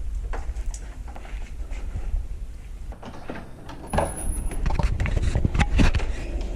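Car engine running, a steady low rumble, with scattered clicks and knocks from about four seconds in.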